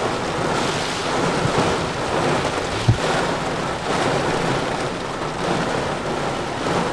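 Heavy downpour in a lightning storm, heard from inside a vehicle as a steady rush of rain on it, with one brief low thump about three seconds in.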